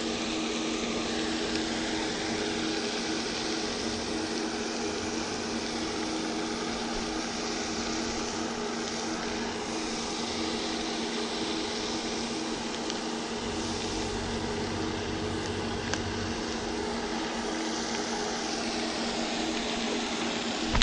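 A steady mechanical hum: a few constant tones over an even hiss, unchanging, with a faint low rumble joining for a couple of seconds about two-thirds of the way in.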